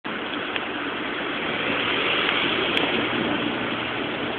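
Steady rushing noise of street traffic, an even hiss with no single vehicle standing out.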